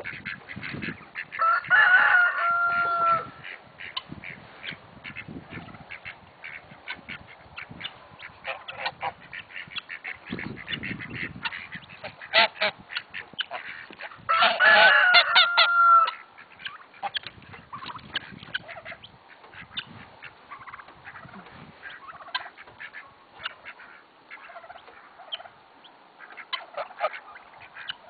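A mixed backyard poultry flock of geese, ducks and chickens calling, with many short scattered calls throughout. Two loud, longer calls stand out, about two seconds in and again around fifteen seconds, each ending on a held note.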